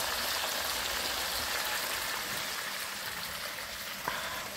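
Small river fish frying in hot oil in a wide pan over a wood fire: a steady sizzle that eases slightly toward the end, with a single click about four seconds in.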